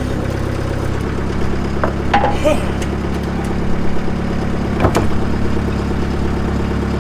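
Skid-steer loader engine idling steadily, with a few metallic knocks about two seconds in and a sharp clank about five seconds in.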